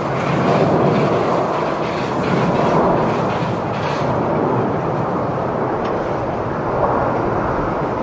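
Jet engines of an Airbus A350 airliner (Rolls-Royce Trent XWB) as it rolls along the runway, heard as a loud, steady rushing rumble.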